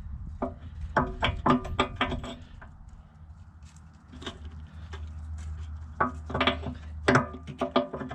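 Hammer blows on a steel backhoe bucket tooth, each ringing briefly, in two quick runs of strikes: one about a second in and one about six seconds in. This is the new H&L tooth being driven home on its adapter, over a steady low hum.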